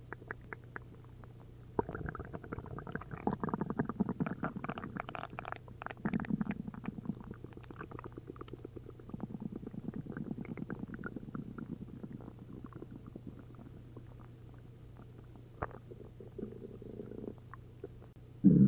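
Upset stomach and intestines gurgling: liquid bubbling and popping over a low rumble, coming in waves, most busily from about two seconds in to about twelve, then quieter, with a short loud gurgle at the very end. It is the gut reacting to a liter of milk and a liter of prune juice, with all that liquid moving through it.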